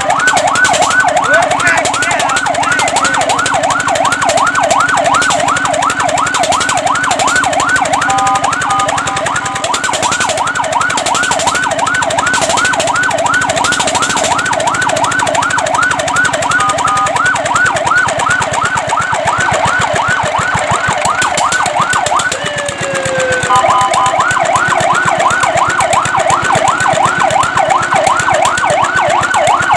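Fire truck siren in a fast yelp: a rising-and-falling wail of about four cycles a second. Three times it gives way to a few seconds of steady, choppy horn-like tones.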